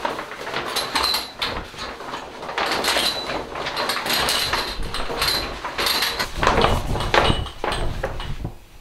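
Plastic shower curtain rustling and crinkling as it is handled up at its rod, with scattered sharp clicks and scrapes. The rustle is busiest about two-thirds of the way in and dies down just before the end.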